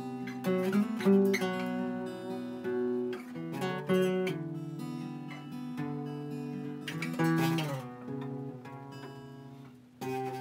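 Two acoustic guitars playing an instrumental piece in E, mixing picked notes and strums. The playing thins out near the end before a new strummed chord.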